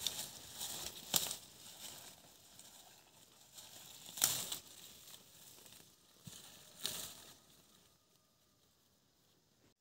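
Rustling and crackling noises, with three louder sudden rushes about one, four and seven seconds in, dying down near the end.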